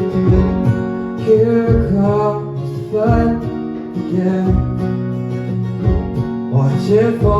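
Live acoustic folk music: acoustic guitar strumming in a steady rhythm, with a melody line moving over it.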